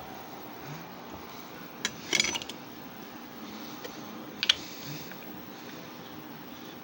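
A short clatter of sharp clicks about two seconds in and one more sharp click about four and a half seconds in, over a steady faint hum.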